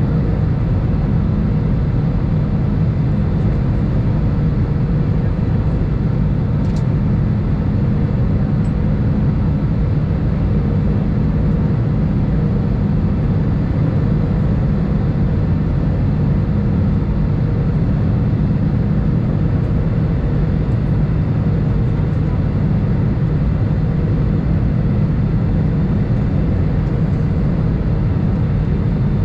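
Airbus A319 cabin noise on descent: the steady drone of the jet engines and rushing airflow, deep and even, with a faint steady hum, as heard from a window seat beside the wing.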